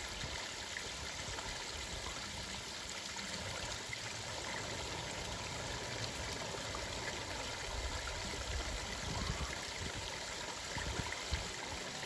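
Water trickling steadily over a small rock waterfall into a pond.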